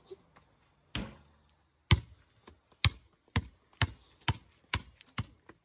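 A basketball being bounced, eight sharp bounces: the first three about a second apart, then quicker, about two a second, as it is dribbled.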